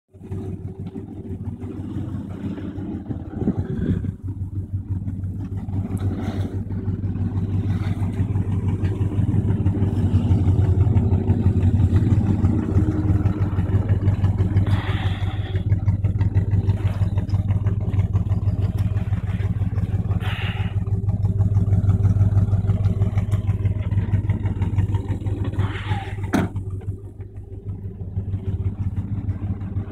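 1965 Buick Skylark's engine idling steadily, a low even pulsing hum that grows louder through the middle and falls back near the end.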